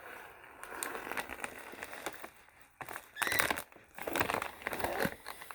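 Doritos chip bag crinkling as it is handled, in short spells with brief pauses between them.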